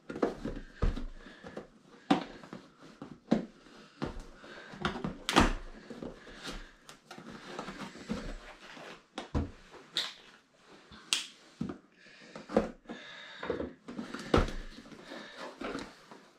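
A cardboard product box being handled and opened by hand on a wooden table: scattered rustles, scrapes and taps of cardboard and packaging, with several sharper clicks.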